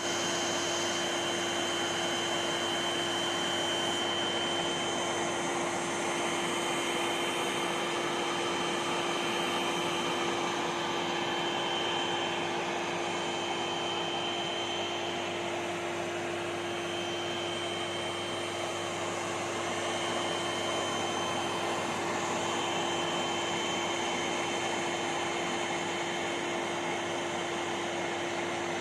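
National MC-4860 vacuum cleaner with a 1250-watt motor, running steadily. A constant rush of air carries a steady motor whine.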